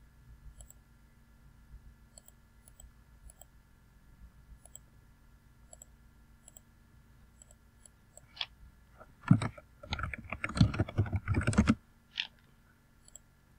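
Typing on a computer keyboard: a quick run of key strikes about nine seconds in, lasting a couple of seconds, after a stretch of faint, spaced clicks and followed by one more click.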